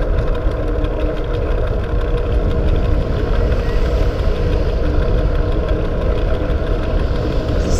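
Steady wind rush and rumble on the microphone of a bicycle-mounted camera as the bicycle is ridden along the road.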